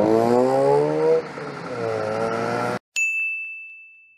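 Dump trucks driving past on a highway, engine note rising as they pull away over steady road noise, cut off abruptly about three seconds in. A single ding sound effect follows, ringing on one high tone and fading out.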